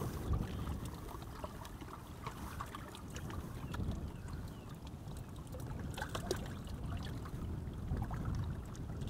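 Wind rumbling on the microphone over small waves lapping at a stony shoreline, with a few faint ticks.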